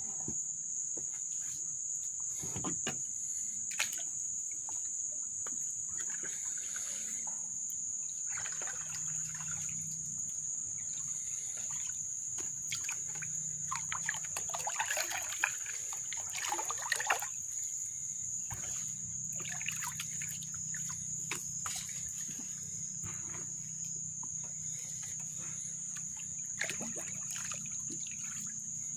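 Canoe paddle strokes splashing and dripping water at irregular intervals, with a few light knocks, over a steady high-pitched insect drone.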